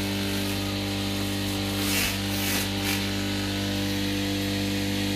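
Multi-purpose vegetable and forage chopper running with a steady motor hum. A few short hissing bursts about two to three seconds in are the blades shredding greens as they are fed through.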